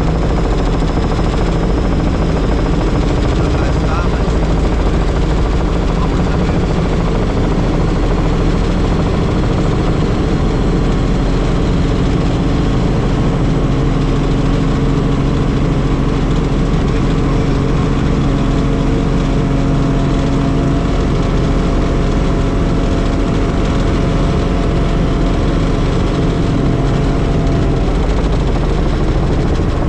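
Helicopter in flight: the steady drone of rotor and engine, holding an even pitch and level throughout.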